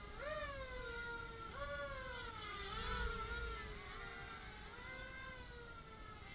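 Hobbyking Color 250 quadcopter's motors and propellers whining. The pitch jumps up sharply with throttle about a quarter second in and again about a second and a half in, then wavers up and down as the quad is steadied.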